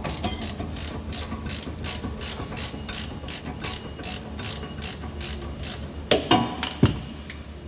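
Ratchet wrench clicking steadily, about five clicks a second, as a rear brake caliper bracket bolt is undone. A few louder metal clunks come about six seconds in, and the clicking stops shortly before the end.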